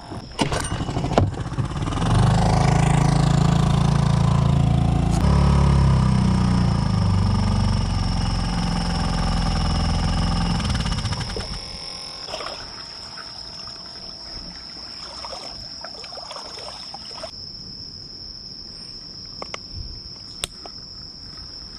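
A small boat's outboard motor runs steadily for about nine seconds and then stops. Insects keep up a steady high-pitched chirring throughout.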